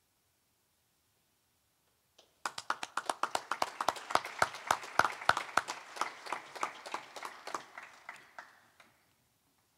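A small group of people clapping, starting about two seconds in, with the separate claps audible, and dying away near the end.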